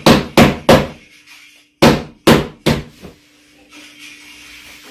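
Sharp knocks in two runs: three close together, a short pause, then four more that grow fainter. A faint steady hum lies under the gap and the end.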